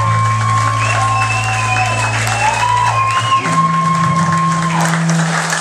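Live band music: a held low note under long sustained high tones that slide in pitch now and then. The low note stops about three seconds in and a slightly higher held note takes over. Crowd noise runs underneath.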